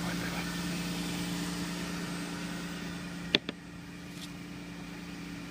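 Jeep engine idling steadily, with two sharp knocks close together about three seconds in.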